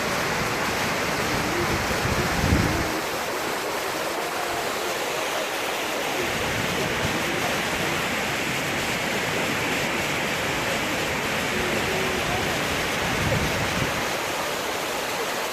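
Water of the Ouzoud waterfalls rushing steadily. Faint voices sound underneath, and there are two low bumps, one about two and a half seconds in and one near the end.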